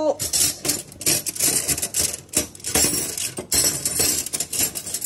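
Metal cutlery and kitchen utensils clinking and rattling against a stainless wire-mesh drawer organiser as they are handled, in a quick run of irregular clicks and chinks.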